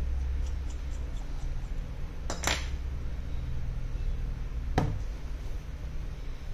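Small hard clicks of a precision screwdriver and an iPhone being put down on a workbench mat: a few faint ticks, then a sharp double click and, about two seconds later, a single click, over a steady low hum.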